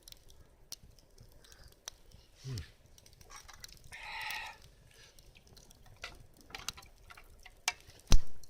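Campfire in a fire stand crackling with sparse sharp pops, a short hissing rustle about four seconds in, and a heavy thump near the end.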